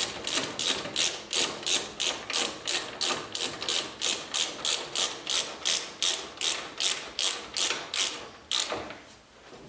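Hand ratchet wrench clicking in a steady rhythm, about three clicks a second, stopping near the end.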